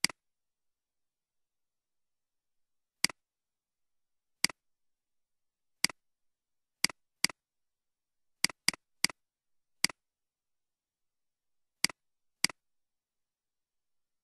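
Computer mouse clicks: about a dozen single clicks at irregular intervals, each a quick press and release, with dead silence between them.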